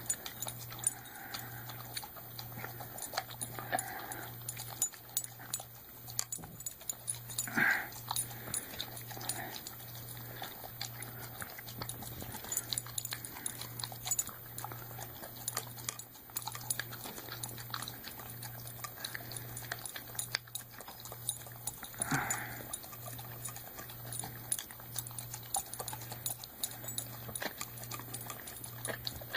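Golden retriever eating food out of a metal can: a steady run of small licking and chewing clicks, with two louder short sounds about 8 and 22 seconds in.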